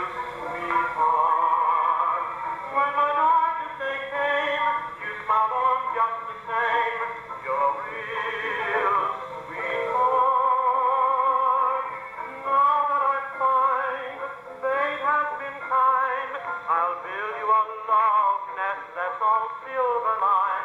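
A 1907 Gramophone & Typewriter Senior Monarch acoustic gramophone plays a 1928 dance-band fox trot from a 78 rpm record through its aluminium horn. The sound is thin and midrange, with no deep bass.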